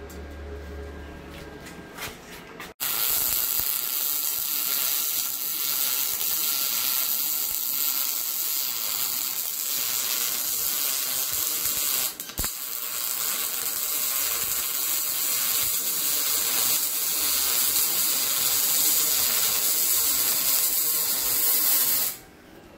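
MIG welding arc from a RETOP MIG 200 dual-pulse welder, hissing steadily as the bead is laid. It starts a few seconds in, breaks off briefly about halfway, and stops just before the end.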